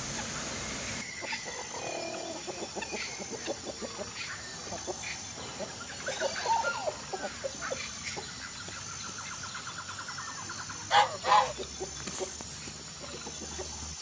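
A flock of chickens clucking, with many short calls scattered throughout and two louder calls close together about eleven seconds in.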